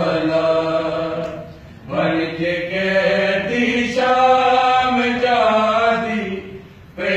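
Male voices chanting a noha, a Shia lament for Imam Husayn, unaccompanied and in long sustained lines. The chanting breaks briefly for breath about two seconds in and again near the end.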